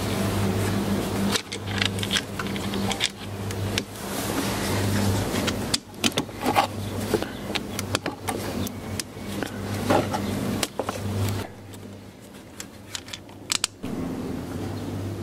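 Gloved hands fitting plastic hose clamps onto rubber coolant hoses: irregular rustling and handling noise with sharp plastic clicks as the clamps' ratchets lock shut, over a steady low hum.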